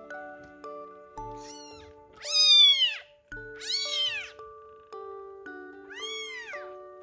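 A young kitten meowing four times, each call rising and then falling in pitch, the loudest about two and a half seconds in. Gentle background music with steady held notes runs underneath.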